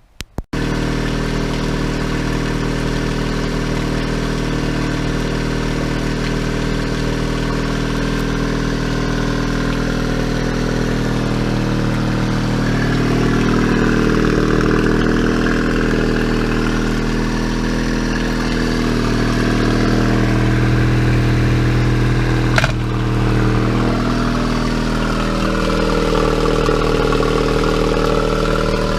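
Yamaha 8 hp four-stroke two-cylinder tiller outboard running steadily, revved up and eased back a few times. One sharp click about two-thirds through.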